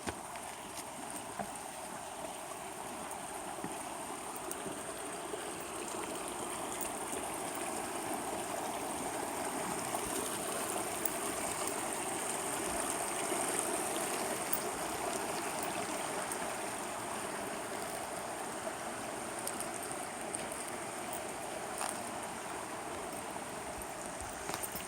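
Mountain stream running: a steady rush of water that grows a little louder toward the middle and then eases.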